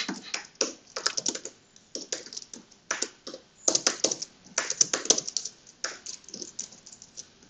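Typing on a computer keyboard in irregular bursts of keystrokes with short pauses, as code is written.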